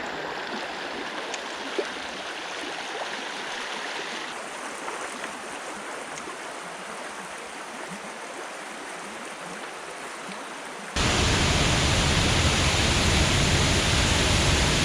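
Rushing creek water, a steady hiss of flowing water over rocks. About eleven seconds in it cuts abruptly to a louder, deeper rush of falling water from a waterfall.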